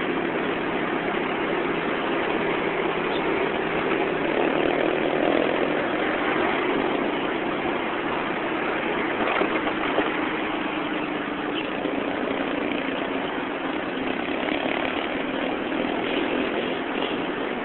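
Vehicle engine running steadily with a low hum while moving slowly through dense road traffic, mixed with the noise of the surrounding cars and motorbikes. There is one short click about ten seconds in.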